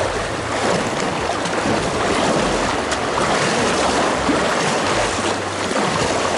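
Fast river water rushing steadily around an inflatable packraft, with splashes from double-bladed paddle strokes, heard close up from the boat.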